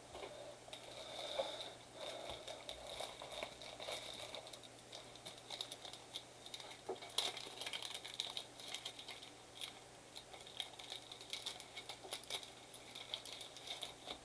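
Trading-card blaster box and pack wrappers crinkling and tearing as the packs are opened, with many small irregular clicks and taps from the cards being handled.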